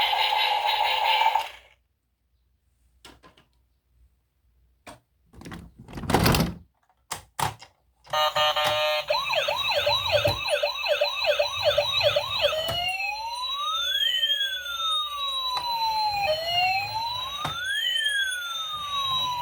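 Music cuts off, a few light taps and one louder knock follow, then a toy emergency vehicle's electronic siren starts about 8 s in: a fast up-and-down yelp, about three cycles a second, that changes after about four seconds to a slow rising and falling wail.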